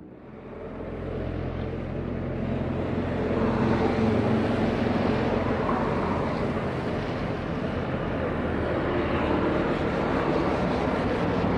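Boeing 737-900ER jet on landing approach, its CFM56 engine noise a steady rumble with low hums that grows louder as the aircraft comes closer.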